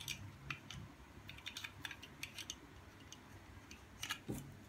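Faint, irregular light plastic clicks and taps as the white plastic yolk-separator attachment is fitted onto an EZCracker egg cracker by hand, with a soft low knock near the end.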